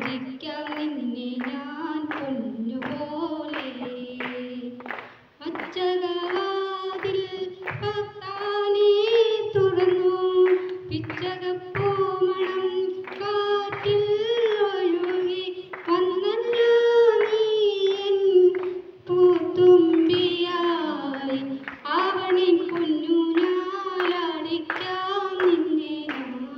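A woman singing a melody into a microphone, with hands clapping along in time about twice a second. There is a brief pause near five seconds in.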